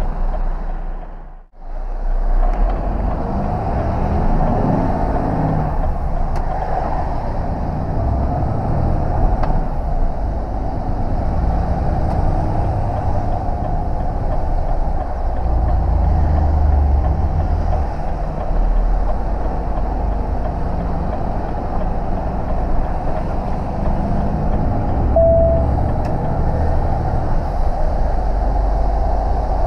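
Truck engine and road noise heard from inside the cab: a steady low drone as the lorry drives through a roundabout and onto a slip road. The sound cuts out briefly about a second and a half in, and a short beep sounds near the end.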